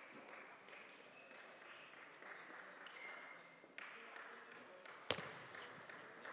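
Table tennis ball struck by rackets and bouncing on the table as a point is played: one loud sharp click about five seconds in, followed by a few lighter ticks, over faint hall background noise.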